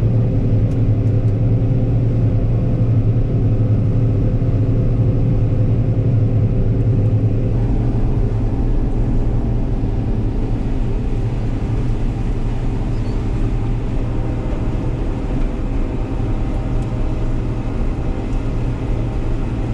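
Heavy farm-machinery engine running steadily, a constant low drone with a set of even pitches; the deepest part of the drone eases a little about seven and a half seconds in.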